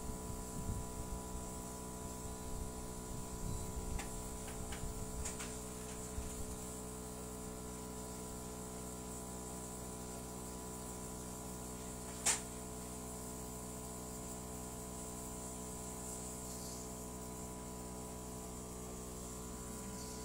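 Steady electrical hum made of several even tones, with low rumbles in the first few seconds and one sharp click about twelve seconds in.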